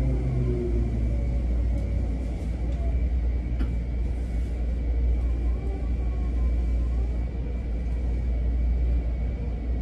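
Running sound inside a Seibu 10000-series electric train car with Hitachi IGBT inverter, braking into a station and coming to a stop. The motor's falling electric whine dies away about a second in, leaving a steady low rumble.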